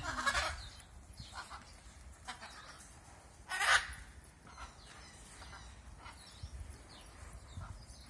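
Birds in aviaries calling: a few short, faint calls and one loud, short call about three and a half seconds in.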